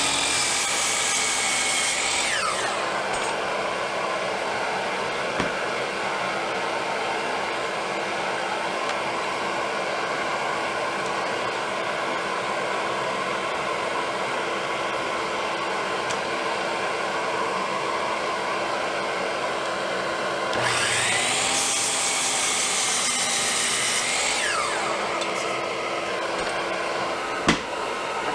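A power tool's motor whine winds down about two seconds in, then runs up again about twenty seconds in and winds down a few seconds later, over a steady whirring throughout. There is a single sharp knock near the end.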